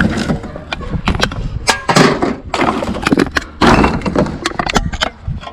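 Hard objects clattering: an irregular run of sharp knocks and rattles, with stretches of rustling noise between them.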